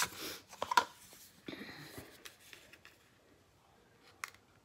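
Handling of a small boxed eyeshadow palette: a few sharp clicks and brief rustling of the packaging in the first two seconds, then quiet with a single click near the end.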